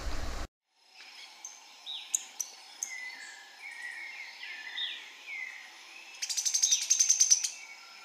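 Field recording of sharp-billed treehunter song: short whistled notes that slide downward, then a loud, fast series of sharp high notes for about a second and a half near the end. A different recording with faint clicks cuts off about half a second in.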